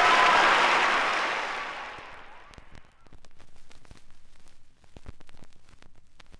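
Audience applause and cheering dying away over the first two seconds or so. It leaves the low surface noise of a vinyl record, with scattered clicks.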